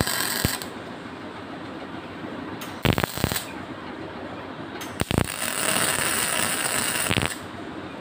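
Electric welding arc on stainless-steel bed-frame tubing: a short burst of arc noise at the start and a longer one of about two seconds near the end. Between them, two quick clusters of sharp metal taps, about three and five seconds in, from a hammer knocking the tubes.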